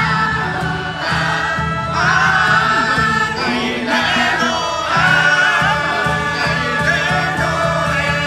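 Music: a choir of voices singing a song over instrumental accompaniment with a steady low beat.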